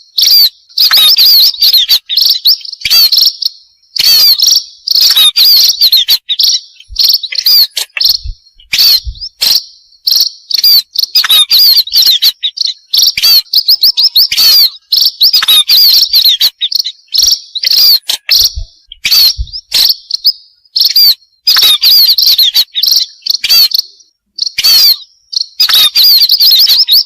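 Loud, dense chattering chirps of many munias (burung pipit), a lure recording used to draw the birds in. The chirps come in clusters a second or two long, separated by short pauses.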